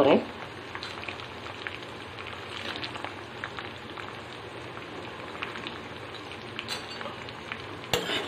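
Sliced onions frying in hot oil in a kadai: a steady sizzle with small crackles and pops. Near the end a metal spatula knocks once against the pan.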